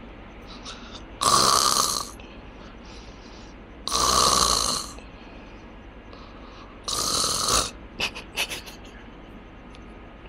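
A person snoring in deep sleep, really bad snoring: three loud snores about three seconds apart, then a few short choppy sounds just after the third.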